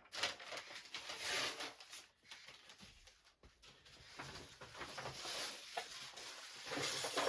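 Newspaper rustling and crinkling in irregular spells as the sheets are handled.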